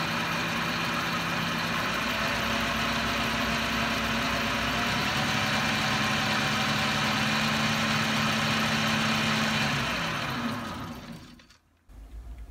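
Metal lathe running, spinning a disc held off-centre in a four-jaw chuck: a steady mechanical hum and whine. About ten seconds in it slows and dies away as the spindle stops.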